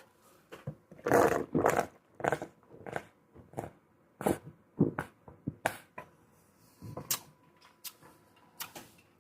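Beer being chugged through a beer snorkel: a string of irregular gulps and gurgles of beer and air in short bursts.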